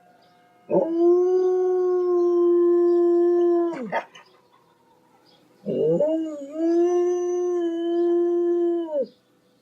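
A dog howling: two long howls of about three seconds each, held at a steady pitch and dropping away at the end. The second one wavers as it rises before it settles.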